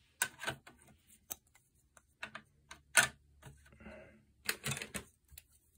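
Plastic parts of a bidet attachment's mounting brackets being handled and pressed into place: scattered light clicks and taps, the loudest about three seconds in.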